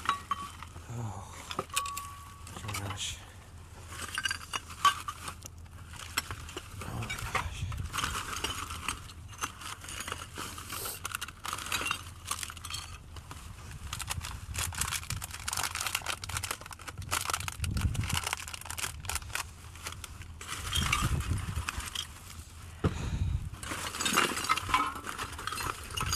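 Dumpster contents being rummaged through: scattered clinks, rattles and crinkles of boxes and store goods being moved about, with gusts of wind buffeting the microphone now and then.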